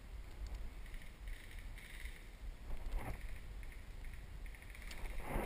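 Footsteps and rustling through forest undergrowth and leaf litter, with two louder brushing swishes, about three seconds in and near the end, over a low rumble of wind and handling on the microphone.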